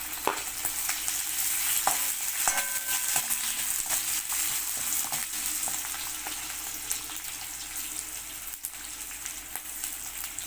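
Garlic, curry leaves and green chillies sizzling in hot sesame oil in a heavy iron kadai, with sharp crackles as the tempering is stirred. The sizzle eases a little toward the end.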